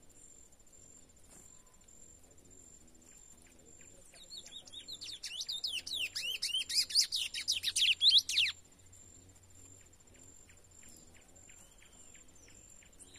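Chestnut-bellied seed finch (curió), a young male still in brown 'pardo' plumage, singing one phrase of rapid, clear whistled notes. The phrase starts about four seconds in, grows louder, and stops abruptly after about four and a half seconds.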